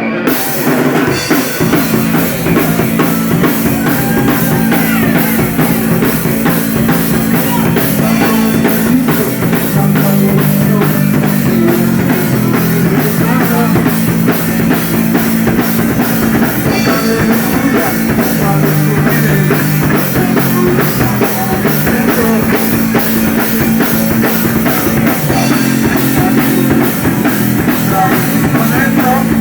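Rock and roll band playing: a drum kit keeps a steady beat under guitar, with the low chords changing every few seconds.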